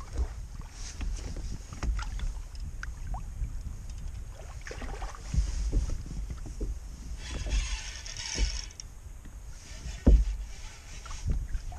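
Water slapping against a Hobie Compass kayak's hull, with wind rumbling on the microphone and scattered knocks and clicks. A brief hiss comes about two thirds of the way in, and a sharper knock near the end.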